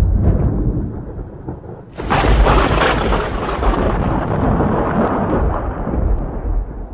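Thunder: a deep rumble dies down, then a sudden sharp crack about two seconds in rolls on into a long rumble that slowly fades.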